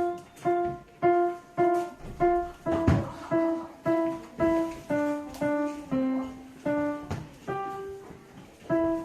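A child playing a simple melody on the piano at an even pace of about two notes a second. It opens with a run of repeated notes on one pitch, steps down and back up, holds one longer note near the end, then starts the repeated notes again.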